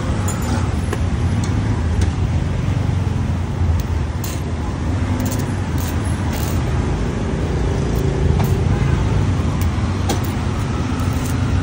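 Steady low rumble of street traffic, with scattered light clicks and rattles while a metal roller shutter rolls up.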